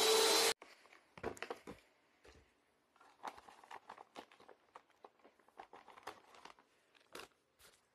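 Bissell PowerLifter bagged vacuum cleaner running with a steady high whine, then switched off and cutting out suddenly about half a second in. Faint crinkling and rustling follow as the vacuum bag is handled.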